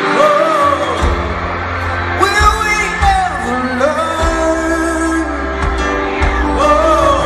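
Male lead vocal singing a pop song live with the band in an arena. A low bass part comes in about a second in.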